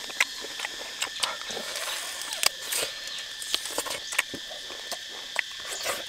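A man eating roasted duck by hand: irregular smacking and crackling clicks of chewing and of meat being torn off the bone, several a second. Insects keep up a steady high drone behind.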